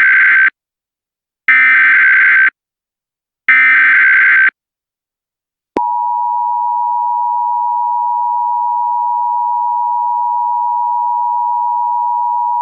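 Emergency Alert System SAME header: three loud bursts of data tones, each about a second long and a second apart. About six seconds in, the steady two-tone EAS attention signal starts and holds, marking the start of a new alert message.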